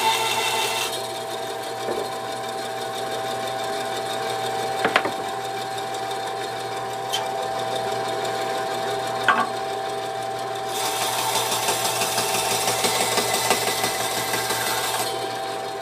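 Craftsman 10-inch direct-drive three-wheel bandsaw running with a steady motor hum, cutting a piece of thin wood stock. The blade hiss through the wood is heard briefly at the start and again from about 11 to 15 s. In between, a few sharp clicks of wood pieces being handled and set down.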